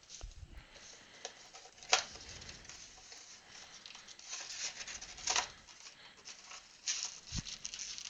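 A cardboard retail box of trading cards being opened by hand and its packs pulled out: tearing, rustling and scattered clicks. There is a sharp tap about two seconds in and a low thump near the end.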